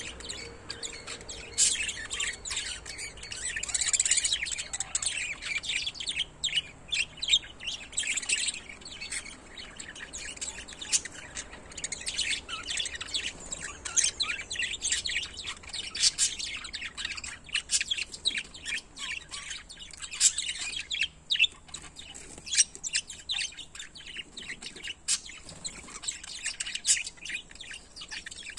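A pair of small pet parrots chirping and chattering in a quick stream of short, sharp calls without a break.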